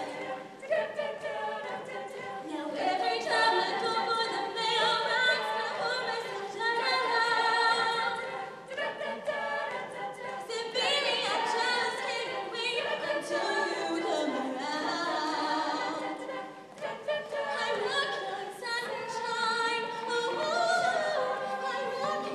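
A women's show choir singing together in harmony while dancing.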